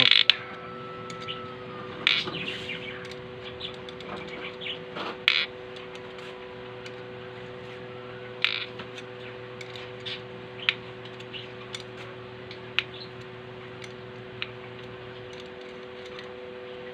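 Scattered light metal clicks and taps as the clutch bearing is worked out of a Singer edger sewing machine, over a steady two-tone hum.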